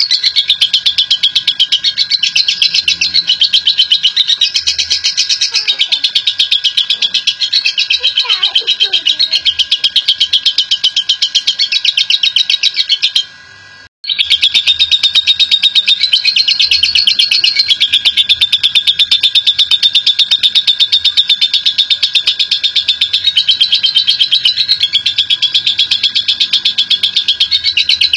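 Lovebird in a long ngekek: a continuous, very rapid high-pitched chattering trill that cuts out once briefly about halfway through.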